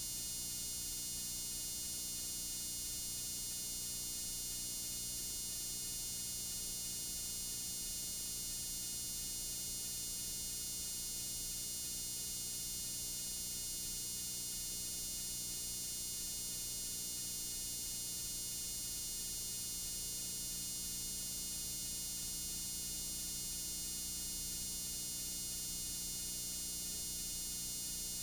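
Steady hiss and low electrical hum from the playback of a blank stretch of videotape, with no programme sound.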